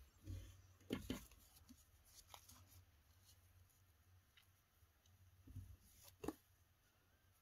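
Faint paper rustling and a few light clicks and taps as a nail-gel brush is wiped clean on a cellulose pad and the pad is folded; otherwise near silence. The clearest sounds come about a second in and again near six seconds.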